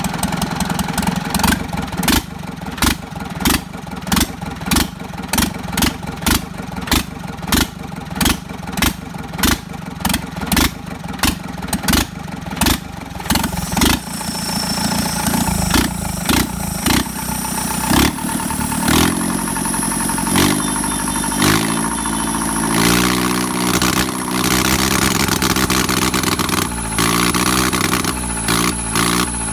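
Yanmar US45 tractor's four-cylinder diesel engine running, with a sharp knock repeating about every two-thirds of a second for the first half. After about 14 seconds the knocking fades and the engine speed rises and falls.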